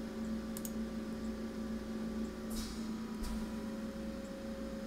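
Quiet room tone with a steady electrical hum, broken by a few faint clicks of a computer mouse.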